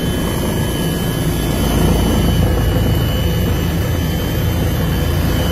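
Helicopter cabin noise heard from inside the cockpit: the rotor and turbine engine drone steadily, with a thin steady high whine above them.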